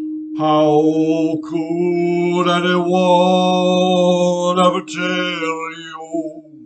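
A man's voice singing long, held, wordless tones in vocal toning, with the vowel shifting, over the steady ring of a crystal singing bowl. The voice stops about six seconds in while the bowl keeps ringing.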